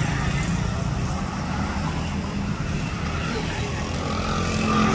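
Hot oil sizzling in a wok around shredded rice grain deep-frying in a wire strainer, over a steady low rumble of road traffic that grows louder near the end.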